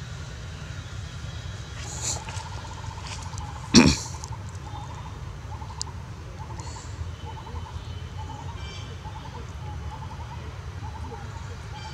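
Outdoor ambience: a steady low rumble with a faint chirp that repeats about every second, and one sudden loud thump about four seconds in.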